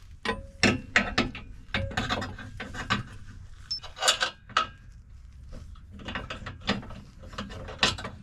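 Hand ratchet clicking in short, irregular runs of strokes, with a few sharper metal knocks, as the factory bolt is run into the Jeep's lower control arm mount.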